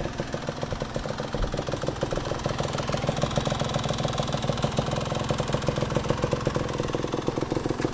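Honda CRM80's single-cylinder two-stroke engine idling through a Pro Skill aftermarket silencer on the stock expansion chamber, which has had its internal valve removed. Steady, fast, even exhaust beat.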